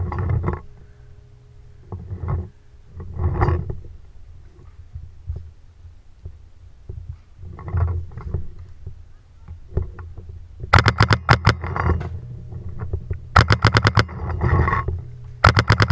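Paintball marker firing rapid strings of shots, many a second, in three bursts from about eleven seconds in. Before that there are a few short, quieter bursts of sound.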